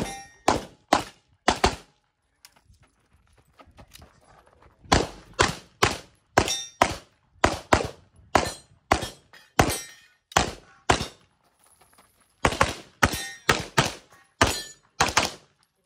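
Walther PDP SF 9mm pistol fired in fast strings of shots, about thirty in all. The strings are broken by pauses of one to three seconds: a few shots in the first two seconds, a long run from about five to eleven seconds, and a last run near the end.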